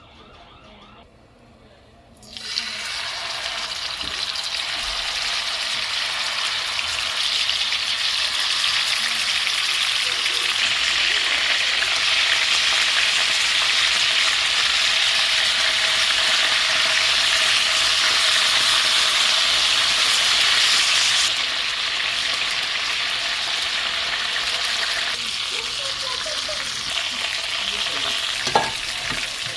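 Chicken frying, a loud, steady sizzle that starts suddenly about two seconds in. It eases a little after about twenty seconds, and there is a sharp click near the end.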